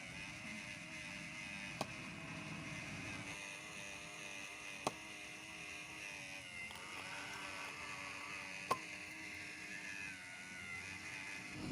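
Small geared electric motor running steadily with a slightly wavering whine. Three sharp clicks, about two, five and nine seconds in.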